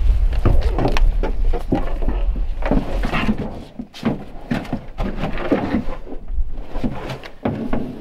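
Irregular knocks, clunks and rustling as a deer carcass is handled and loaded into a pickup truck bed, with a low rumble of wind on the microphone that drops away about halfway through.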